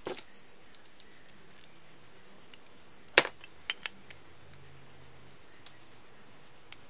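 Tattoo machine parts clicking and knocking as they are handled and fitted together: a rustle of handling at the start, one sharp click about three seconds in, then two lighter clicks just after.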